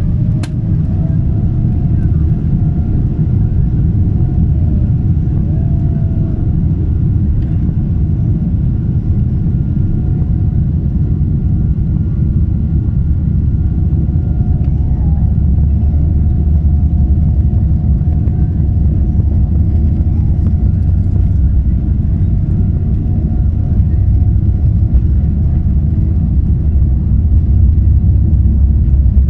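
Cabin noise inside a Boeing 777-300ER moving slowly on the ground: a steady low rumble from its GE90-115B engines and rolling gear, with a faint steady whine above it. The rumble grows a little louder toward the end.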